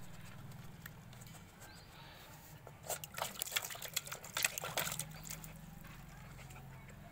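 Pomeranian dog lapping water from a plastic tub, a quick run of short wet laps and splashes from about three to five seconds in, over a steady low hum.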